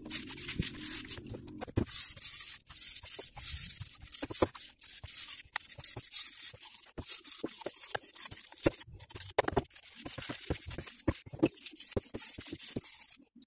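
Stiff brush scrubbing a metal power steering pump bracket in a parts-washer tank of solvent, in quick irregular scratchy strokes.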